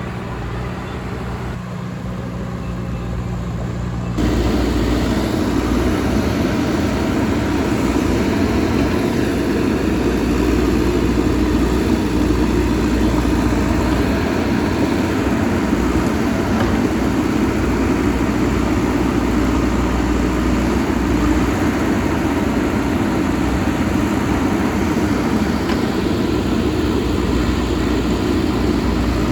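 Diesel engine of a JCB backhoe loader running steadily; about four seconds in it abruptly gets louder and stays loud.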